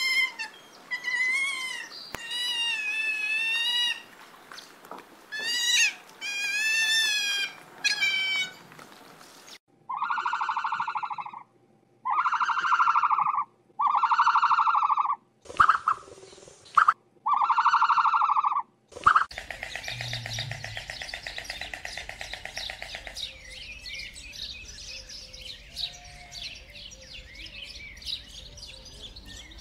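A run of animal calls. First come repeated high, wavering cries; then five evenly spaced, drawn-out calls about a second and a half long; then a rapid, dry clattering with faint calls over it.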